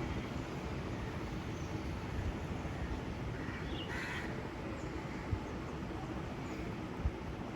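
Crows cawing, one louder call about four seconds in and fainter calls around it, over a steady low background rumble.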